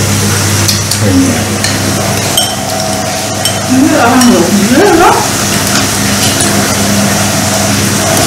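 Chopsticks and spoons clicking against bowls at a meal, over a steady hum and hiss. About halfway through, a louder sliding, wavering tone rises and falls for about a second.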